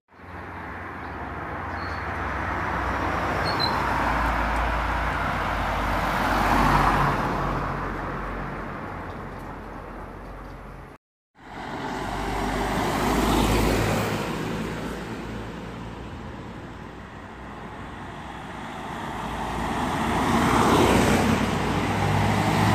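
Road traffic passing close by: engine and tyre noise from cars and a van, swelling as each vehicle nears and fading as it goes. There is a short cut to silence about halfway through, and the loudest pass comes near the end as the van approaches.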